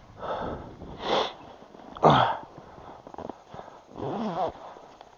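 A man's breath sounds: sniffs and puffed exhales in a few separate bursts, the loudest about two seconds in as a short grunt that falls in pitch, and a brief hummed sound near the end.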